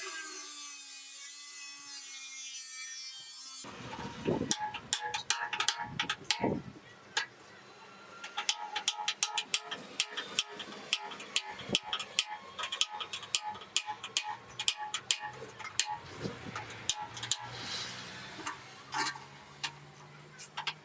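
Abrasive rubbing, like sanding or filing on a metal fuel tank, for about three and a half seconds. It cuts off suddenly into music with a quick, steady percussive beat.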